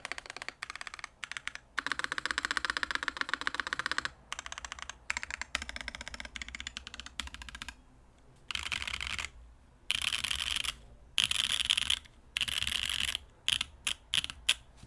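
Mechanical keyboard being typed on: a CannonKeys Onyx with Soju switches on an aluminium plate and GMK keycaps, no case foam. A fast run of keystrokes for the first half, then four separate spells of denser, brighter clatter about a second each, and a few single key presses near the end.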